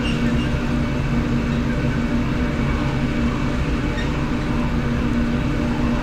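Self-propelled potato harvester and the tractor beside it running steadily in the field: an even drone of engines and machinery with a constant low hum.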